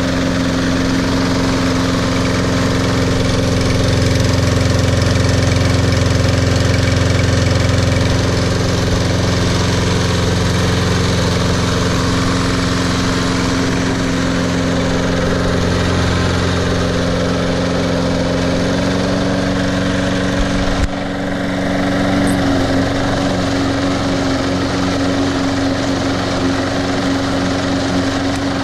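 Snapper walk-behind mower's Briggs & Stratton 6.75 overhead-valve engine running steadily, freshly started. About 21 seconds in there is a brief dip, after which the engine note shifts slightly.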